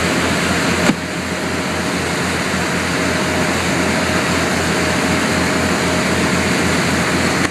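Boat under way at speed: a steady engine drone with an even low pulsing, mixed with wind and rushing water. A single sharp knock about a second in.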